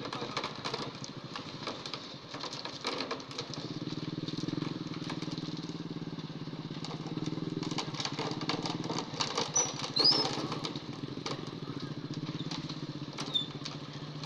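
Concrete mixer truck's diesel engine running steadily while its drum discharges wet concrete down the chute, with hoes and shovels scraping and knocking as the concrete is spread. The engine hum settles into a steady note about three seconds in.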